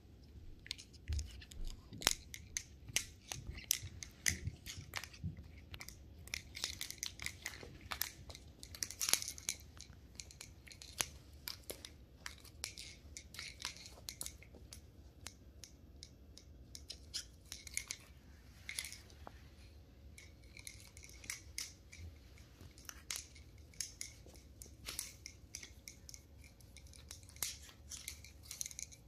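Sheltie puppy chewing and pawing a small white plastic object: irregular crisp clicks and scrapes of teeth on hard plastic, with the toy knocking about on a tile floor.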